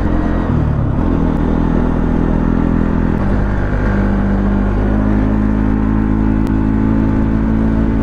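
Motorcycle engine running steadily as the bike rides along at cruising speed, heard from the rider's seat. The engine note breaks briefly a little after three seconds in, then holds steady at a new pitch.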